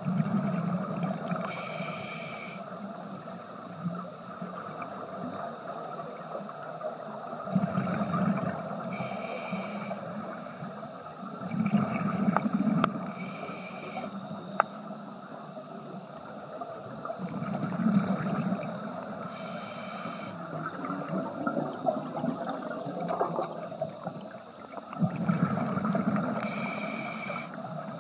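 A scuba diver breathing through a regulator underwater: five slow breaths about six seconds apart. Each is a low bubbling rumble of exhaled air, followed by a short hiss from the regulator.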